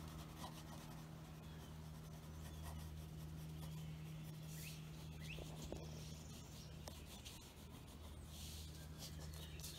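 Faint scratching of a white coloured pencil on black paper, shading in repeated strokes, over a steady low hum.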